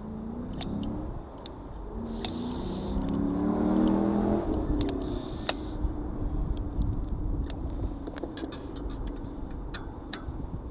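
A motor vehicle engine accelerating past, its pitch rising in two pulls and loudest about four seconds in, over a low rumble, with scattered small metallic clicks.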